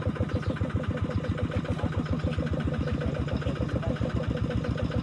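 An engine idling steadily, its low beat repeating evenly about eight times a second with a steady hum above it.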